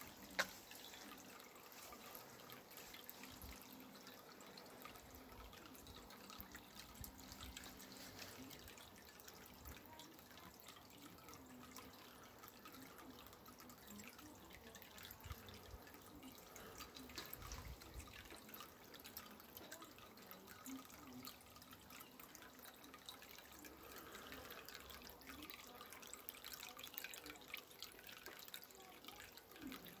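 Copper tiered water fountain running: thin streams of water trickling and dripping from one copper bowl into the next, a faint, steady patter of small splashes. A single sharp click sounds just after the start.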